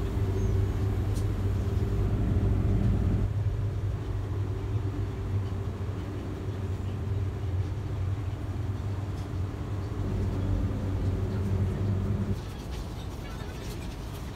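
Low, steady mechanical hum with a few faint steady tones above it; it drops in level about twelve seconds in.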